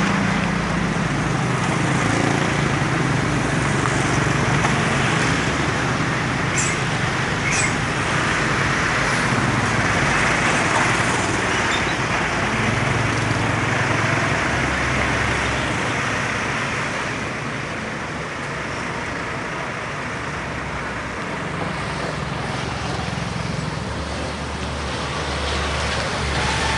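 Heavy diesel trucks driving slowly past in traffic, their engines running with a steady low hum over continuous road noise.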